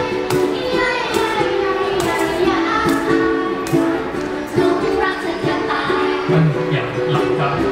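Live acoustic pop song: a woman sings the lead over two ukuleles strumming chords through the stage microphones. Near the end a man's lower voice joins in for about a second.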